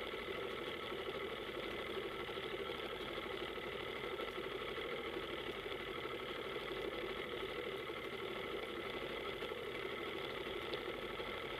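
Powerboat engine running steadily at low revs, an even drone with no change in pitch.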